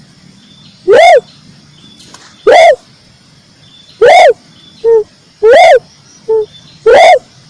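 Red turtle dove calling: five short, arched coos about a second and a half apart, with two shorter, lower notes slipped in between near the middle. The coos are very loud, reaching full scale.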